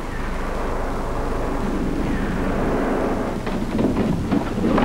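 Steady heavy rumbling and crackling as railway track and its wooden sleepers are torn up, with several sharp knocks near the end.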